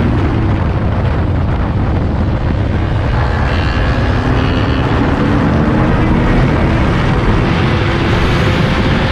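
Triumph Street Triple's inline-three engine pulling hard out of a corner, its revs climbing in the second half as the bike gathers speed, under a loud rush of wind.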